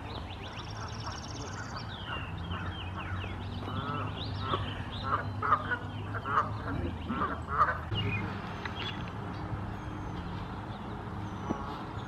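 Several wild birds calling at once. A high, rapid trill comes about half a second in, short chirps are scattered throughout, and louder, lower calls repeat several times between about four and eight seconds in, all over a steady low hum.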